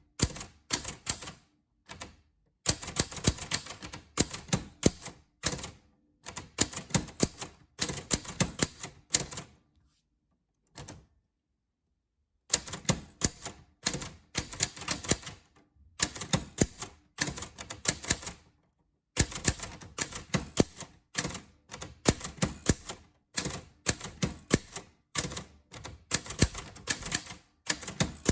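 Typewriter keys being struck in quick runs of clicks, word by word, with short pauses between runs and a longer pause of about two seconds near the middle.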